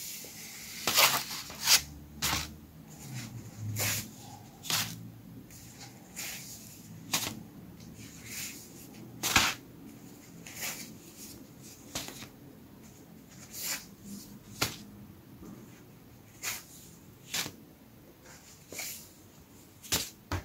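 Thin paper booklets being handled and leafed through: short rustles and flaps of pages and card covers, irregular, about one a second.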